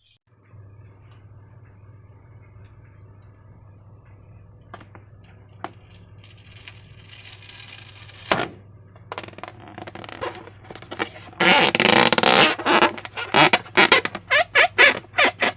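Slime and balloons being handled, squishing and squelching. It is faint at first, with a few clicks and one sharp knock about 8 seconds in, then turns loud and choppy about 11 seconds in. A steady low hum runs underneath.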